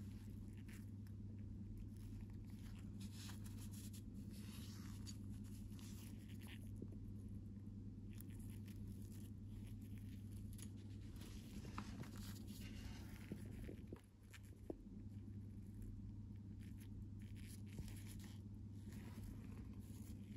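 A steady low hum with faint scattered clicks and rustling as a gloved hand picks up and handles small metal car emblem badges on a cloth.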